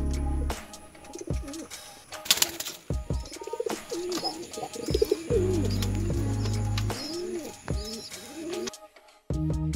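Mukhi pigeons cooing, several arching coos one after another, with a few sharp noises among them. Background music with a heavy bass runs underneath, coming and going.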